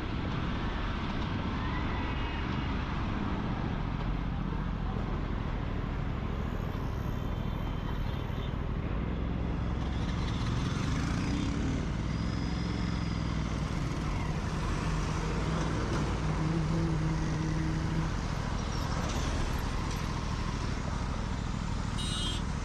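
Aprilia RS 457 parallel-twin engine running under way, with heavy wind and road noise. Near the middle the engine note rises, then holds steady for a few seconds.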